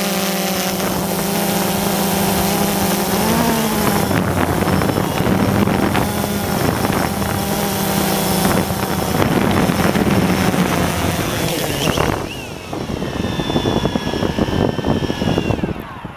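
Small multirotor drone's propellers whirring with a steady hum, the pitch rising briefly about three seconds in, over a rushing noise. From about twelve seconds the sound drops and a high whine falls slowly in pitch as the motors slow.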